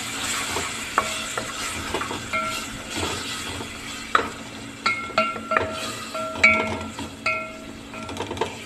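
Chilies, onion and spices frying and sizzling in oil while a spoon stirs and scrapes the pan. From about four seconds in, the spoon knocks against the pan in a series of sharp, ringing clinks.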